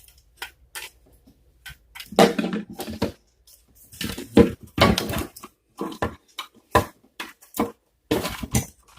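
Irregular clicks, knocks and clatter of hard plastic and metal parts being handled, set down and fitted together, coming in a few bunches.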